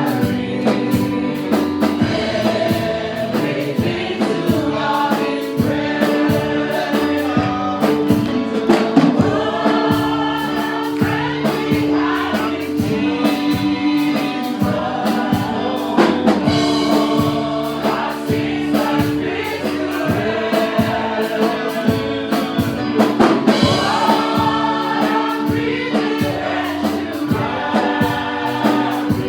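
Gospel praise-and-worship music: a choir singing over held instrumental tones and a steady beat.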